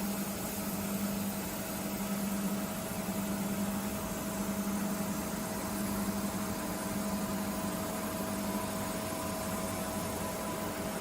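Steady machine hum from a Nomura NN-32YB2 Swiss-type CNC lathe running, with a low steady drone and an even hiss throughout.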